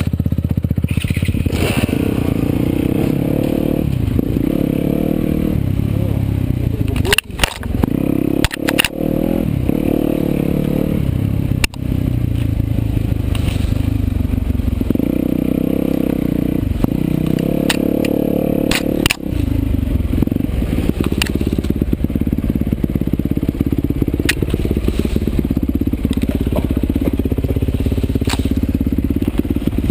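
Trail motorcycle engine running and revving up and down in repeated surges, with several sharp knocks and scrapes along the way.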